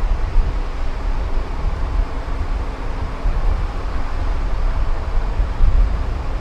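Wind buffeting the microphone as a heavy, unsteady low rumble, with a faint steady hum underneath.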